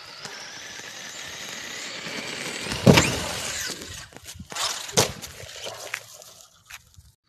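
Radio-controlled car accelerating, its motor whine rising in pitch, then a sharp loud crack about three seconds in as it hits the wooden kicker ramp and launches. About two seconds later a second hard thud as it lands, followed by a few lighter knocks.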